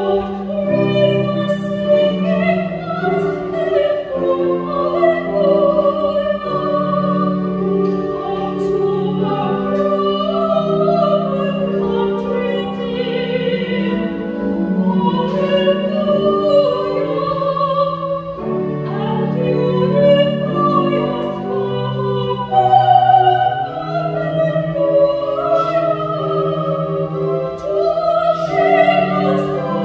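Solo soprano singing a sacred art song with a wide vibrato, over sustained low accompaniment notes.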